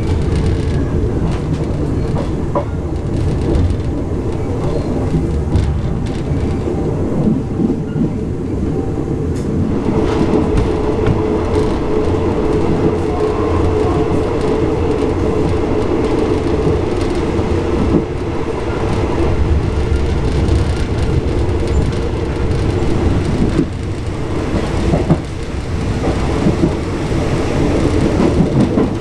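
Thai ordinary passenger train running along the line, heard from inside a third-class coach: a steady rumble of wheels on rail with occasional knocks over the rail joints.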